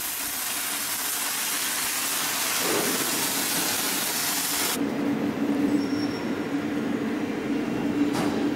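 MIG welding arcs of an automatic pipe-and-flange welding line, a steady crackling hiss. About five seconds in, the hiss cuts off abruptly, leaving a steady low machine hum.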